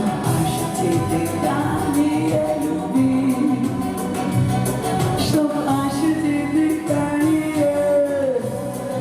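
Pop song playing loudly: a woman singing held, gliding notes over a backing track with a steady beat.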